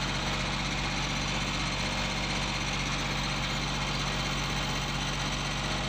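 A steady engine-like drone: a constant low hum under a broad hiss, unchanging throughout.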